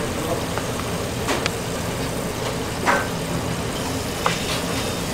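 A wooden spoon stirring julienned carrots in a wok, over a steady low kitchen drone. Three sharp clicks of the spoon against the pan come about one, three and four seconds in.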